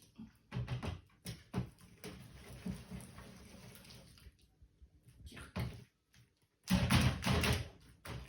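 Homemade PVA-glue slime being handled and mixed in a bowl: a few knocks and soft wet sounds, then louder sticky squelching near the end.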